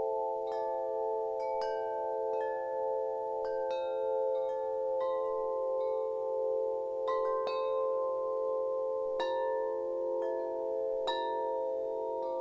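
Wind chimes ringing, struck about a dozen times at uneven intervals. Each strike sets off a bright new tone over a bed of long, overlapping lower tones that keep ringing.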